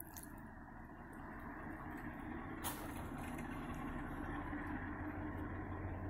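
Distant diesel locomotives approaching, a low steady rumble growing gradually louder, with a brief click near the middle.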